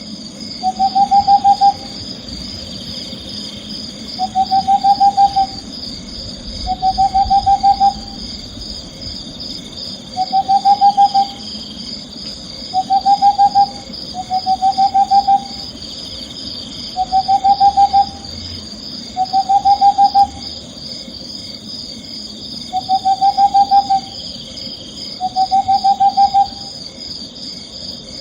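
Owl calling a short trilled hoot, a rapid run of notes lasting about a second, repeated every two to three seconds over a steady high chirring.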